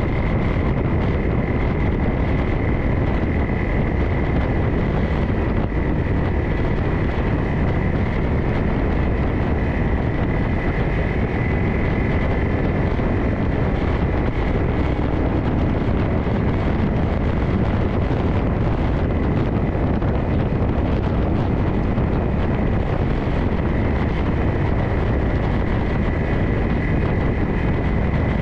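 Off-road vehicle engine running steadily while riding a dirt trail, with a steady high whine over it and wind noise on the microphone.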